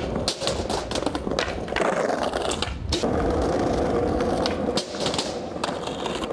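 Skateboard wheels rolling over tiled paving with a steady rumble and a rattle over the tile joints. Several sharp clacks of the board are heard, one near the middle right after a brief lull.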